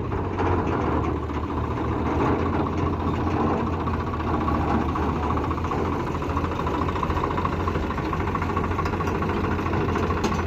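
Heavy diesel engine running steadily at low speed.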